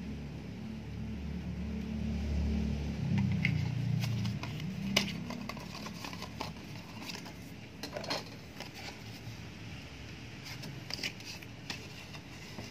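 Unpacking handling of a Primus Stove Paw Ti folding titanium stove base and its card packaging: light clicks, taps and rustles as the thin metal plate is handled and set down, with one sharper click about five seconds in. A low rumble of handling noise runs through the first few seconds.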